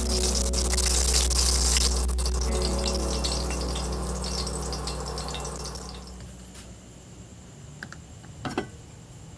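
Milkfish frying in hot oil, sizzling and crackling over a steady low hum. The sizzle fades away about six seconds in, and a couple of light clicks follow near the end.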